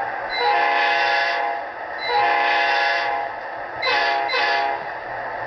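HO-scale Amtrak P42 model locomotive's sound-decoder horn sounding a chord: two long blasts, then two short ones close together, over a steady running noise.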